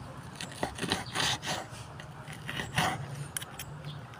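Table knife sawing through a grilled pork chop on a wooden cutting board, the blade scraping and rubbing against the board in short, irregular strokes.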